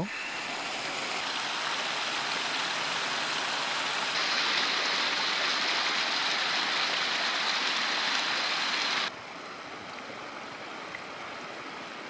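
Snowmelt mountain stream rushing and splashing over rocks, as a steady watery rush. It grows louder and brighter about four seconds in, then drops abruptly to a quieter flow about nine seconds in.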